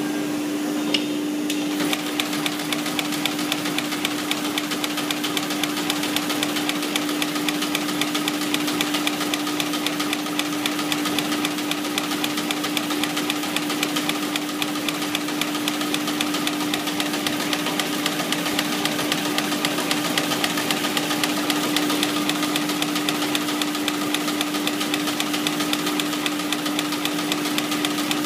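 5-axis CNC brush tufting machine running, a rapid, steady clatter of tufting strokes over a constant motor hum; the clatter starts about two seconds in.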